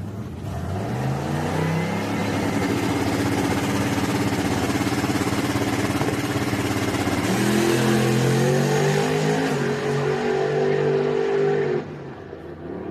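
Drag-racing pickup truck's engine revving up and held at steady high revs on the starting line, then launching about seven seconds in, its pitch climbing in steps through the gears as it pulls away. The sound drops off sharply near the end.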